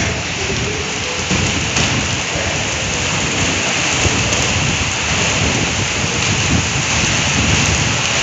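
Heavy rain pouring down, a steady loud rush of water.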